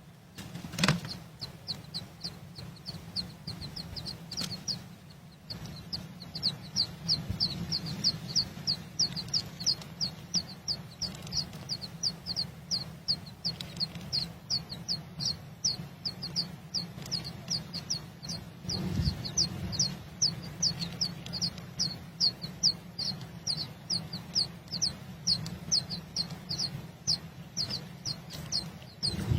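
A bird repeating a short, high, falling note about three times a second, over a steady low rumble, with a thump about a second in.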